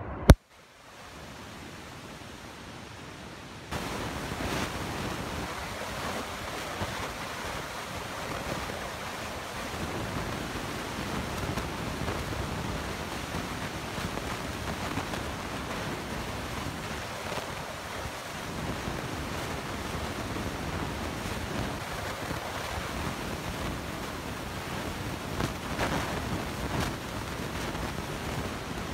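Glacier-fed mountain torrent rushing over boulders, a steady wash of white water. A sharp click comes just at the start, and the rushing steps up louder a few seconds in.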